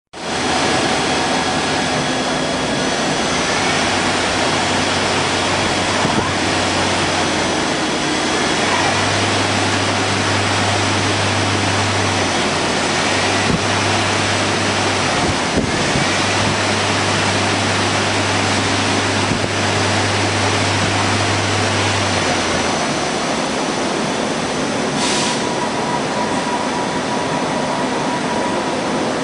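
CNC lathe running in a workshop: a loud, steady machine noise with a low hum that cuts out and comes back a few times, then stops about 23 seconds in.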